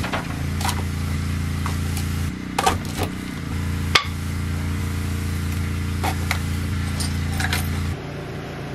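Tools and a length of wood being set down and piled onto a sink: a string of separate clinks and knocks, over a steady low hum that stops near the end.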